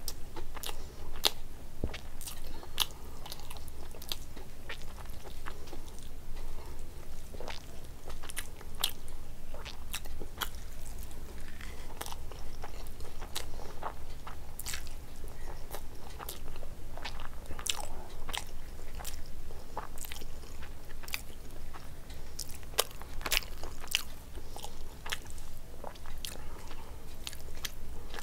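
A person chewing a mouthful of rice and curry, with frequent sharp wet mouth clicks and smacks, over a low steady hum.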